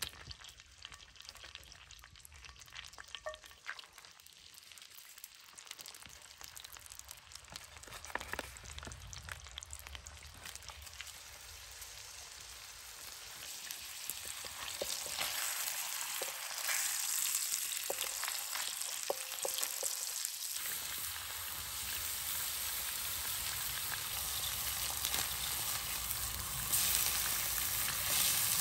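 Meat frying in smoking-hot fat in a pan over a wood fire. It starts as a faint sizzle with a few small pops and swells to a loud, steady sizzle from about halfway through, as the pieces are laid into the pan.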